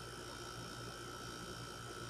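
Vogga air conditioner running with a steady hum and several constant whining tones, the unwanted noise the unit is making.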